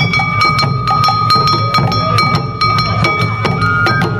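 Japanese festival street band playing: a hand-held brass gong (kane) struck in a quick steady rhythm over barrel drums, with a flute holding a long note that steps up near the end.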